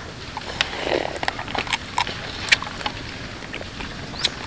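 King crab shell being snipped with kitchen scissors and broken apart by hand: an irregular series of sharp clicks and crunches.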